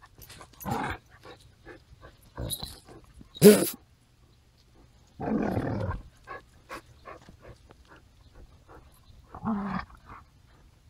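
Dogs play-fighting, growling and giving short barks in separate bursts. The loudest, a sharp bark, comes about three and a half seconds in, and a longer growl of about a second comes soon after.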